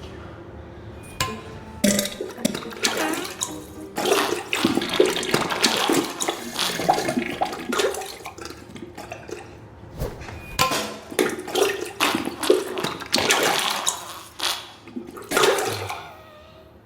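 Diarrhea sound effect: wet, sputtering splatters into toilet water in irregular bursts, loudest from about four seconds in and fading near the end.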